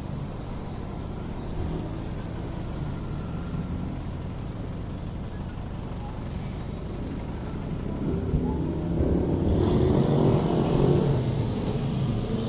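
Steady city traffic rumble, with one vehicle, such as a truck or bus, swelling louder as it passes about two-thirds of the way in.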